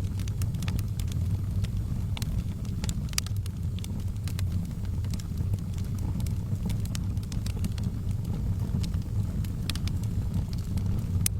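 Wood fire burning in a fireplace: a steady low rumble of the flames with scattered sharp crackles and pops from the burning logs, one louder pop near the end.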